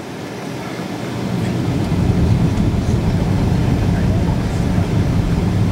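Low rumble of a Boeing 777-200ER's engines and airflow heard inside the cabin on approach with flaps fully extended, swelling over the first two seconds and then holding steady.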